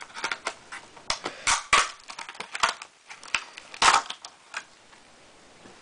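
Clear plastic packaging crinkling and crackling as it is pulled open by hand, a run of irregular sharp crackles, the loudest about a second and a half and four seconds in.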